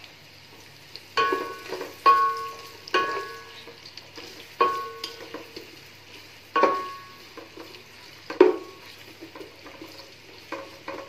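Wooden spatula stirring sliced onions in hot oil in an aluminium pot, with a low sizzle of frying. The spatula knocks against the pot about six times, and each knock leaves the pot ringing briefly.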